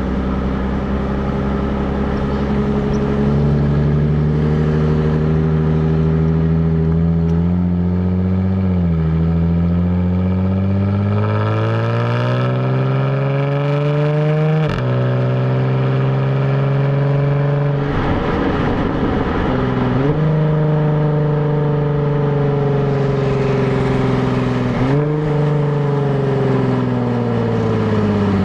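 Stock exhaust of a 2017 Jaguar F-Type, heard right at the tailpipes while driving. The engine note climbs under acceleration and drops sharply at each gear change, about three times, with a rougher stretch in between, and the note falls away near the end as the car slows.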